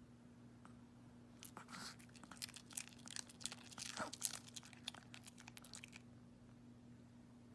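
Faint, irregular crunching clicks for about four seconds over a steady low hum.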